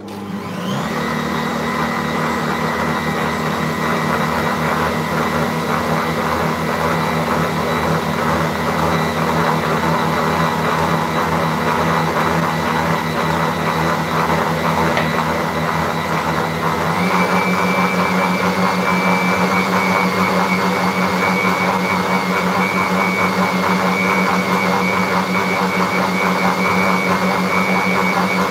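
Electric stand mixer switched on and running steadily, its wire whisk beating butter and sugar in a glass bowl. Its motor whine rises as it spins up, then steps up to a higher note a little over halfway through.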